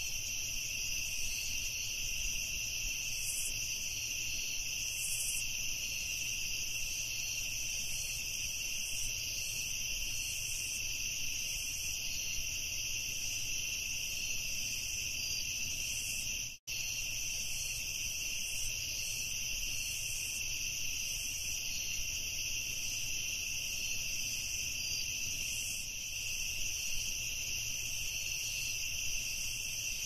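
Crickets chirping in a steady night chorus, which cuts out for an instant about halfway through.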